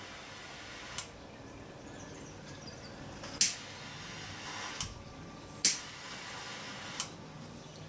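Five sharp clicks and taps from handling small parts during wiring work, about 1, 3.5, 5, 5.5 and 7 seconds in, over a steady even hiss.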